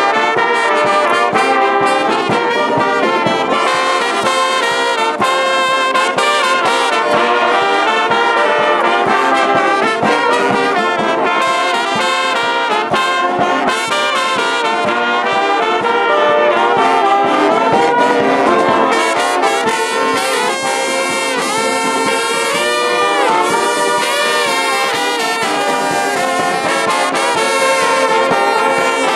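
Brass band playing loudly and without a break, many horns sounding together in a dense ensemble.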